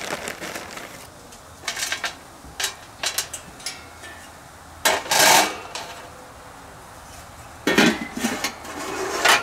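Steel roasting pans and a wire grill rack clattering as they are handled and stacked: a few light clicks, a loud metal clatter about five seconds in, and another clanking clatter near the end as one pan is set down into the other.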